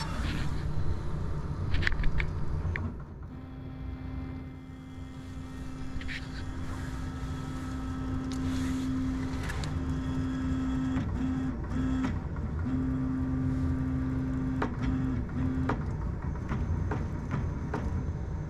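Prusa XL 3D printer's stepper motors driving the toolhead across the gantry during dock calibration: a steady low hum that breaks off briefly a few times and stops a couple of seconds before the end. A few clicks in the first three seconds.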